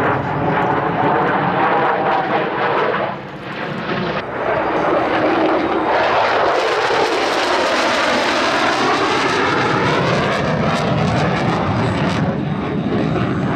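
F-16 Fighting Falcon jet engine running loud as the fighter flies past, easing briefly about three seconds in, then swelling again with sweeping tones that rise and fall as the jet passes.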